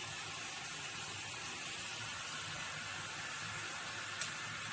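Water spraying from a MakeFit shower head's front-spray setting: a steady hiss, with one short click near the end.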